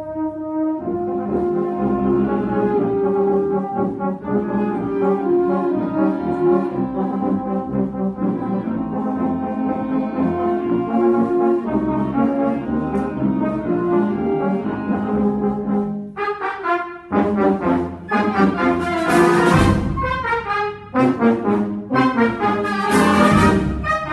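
Brass-led wind ensemble playing a march, with tubas, euphoniums, trombones and trumpets. Held chords give way, about two-thirds through, to short accented notes punctuated by sharp hits.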